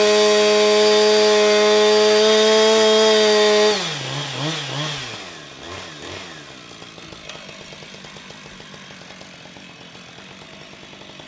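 Chainsaw held at full throttle at one steady pitch for nearly four seconds, then dropping back to a wavering idle and dying away.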